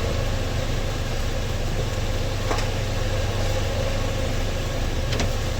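Steady low mechanical hum with an even hiss, broken by two faint clicks.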